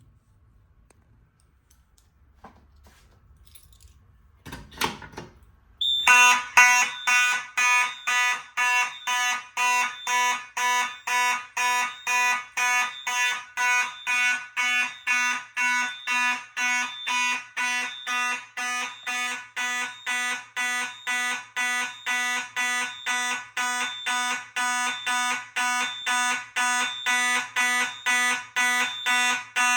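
Simplex 4903-9101 fire alarm horn sounding in march time, pulsing evenly about twice a second. It starts about six seconds in, shortly after a brief clack.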